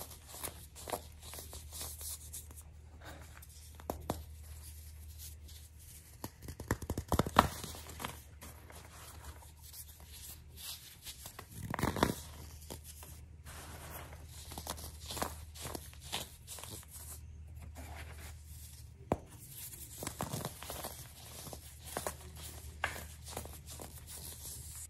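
Hands squeezing and crumbling dyed baking soda, pressed baking-soda star shapes and loose powder, in a stream of soft crunches and crackles. The crunches are loudest in dense clusters about seven seconds in and again around twelve seconds.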